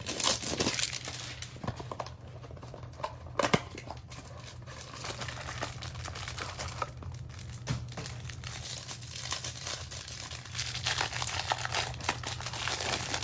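A hanger box of Topps baseball cards being torn open by hand and its wrapping crinkled and pulled off. There are sharp tearing snaps about half a second and three and a half seconds in.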